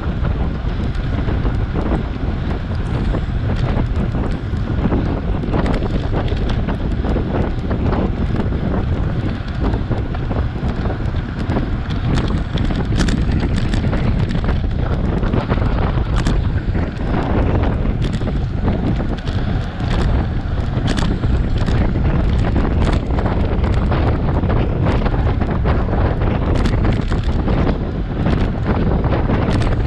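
Wind buffeting the microphone of a bicycle-mounted camera at about 25 mph: a steady, loud rushing noise, heaviest in the low end, with scattered sharp clicks.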